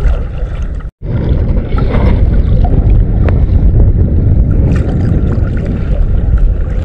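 A boat under way: a loud, steady rumble of motor, water and wind buffeting the microphone. The sound cuts out completely for a moment about a second in.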